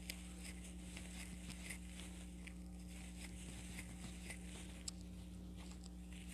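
Faint, irregular ticks and rustles of a crochet hook working yarn, with one sharper click about five seconds in, over a steady low hum.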